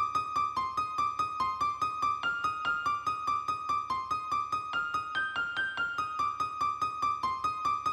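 Background music: a piano-like keyboard playing a quick, even run of notes, about five a second.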